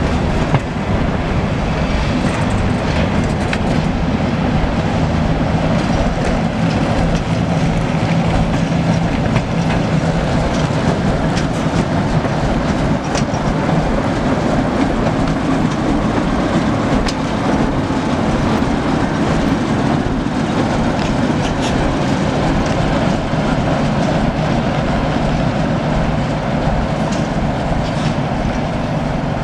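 ChME3 shunting diesel locomotive, with its six-cylinder diesel engine running steadily under load, hauling a freight train of container flatcars at low speed. The wagon wheels click over the rail joints.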